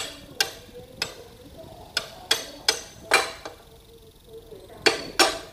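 Hammer tapping the front wheel axle of a Honda Click 110 scooter through the hub to seat it. About nine sharp metal taps come in irregular groups with a pause near the middle, each leaving a short ring.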